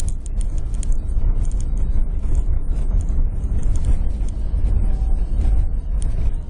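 Car driving over a sandy dirt track, heard from inside the cabin: a steady heavy low rumble of engine and tyres, with frequent irregular rattles and knocks.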